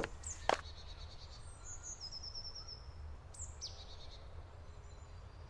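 Two footsteps on gravel at the very start, then songbirds singing in woodland: a high trill of repeated notes falling in steps, and a few quick downward-sweeping calls about three and a half seconds in.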